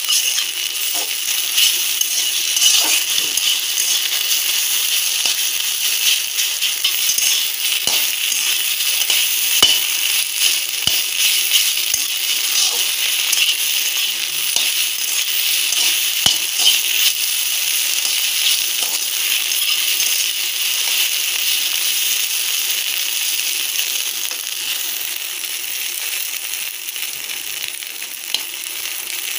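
Eggs sizzling steadily in hot oil in a kadai, with scattered sharp clinks and scrapes as a metal spatula stirs them against the pan now and then.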